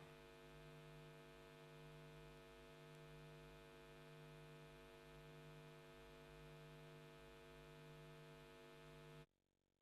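Near silence: a faint steady hum that cuts off abruptly near the end.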